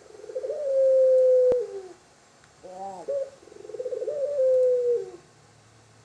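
Barbary dove (puter) cooing twice. Each coo is a rolling opening note drawn out into a long, steady tone that sinks slightly in pitch toward its end. A single sharp click sounds during the first coo.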